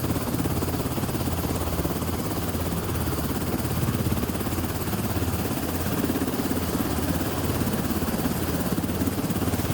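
Steady running engine noise with a fast low throb.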